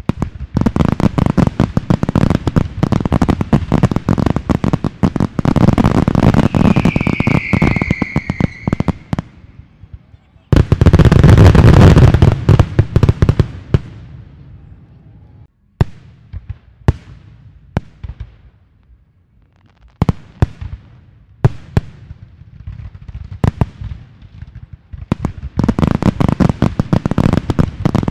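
Aerial fireworks going off in volleys of rapid cracking and popping, with a short falling whistle about seven seconds in. The heaviest, loudest barrage comes after about ten seconds, then a few scattered single bangs, and dense crackling builds again near the end.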